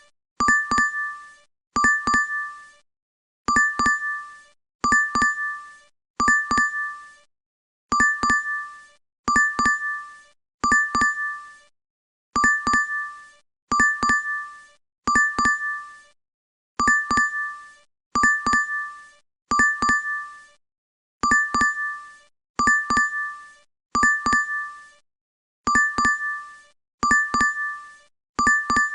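DoorDash app notification chime played over and over, about every second and a half: each time two quick taps, then a bright two-note ding that fades away.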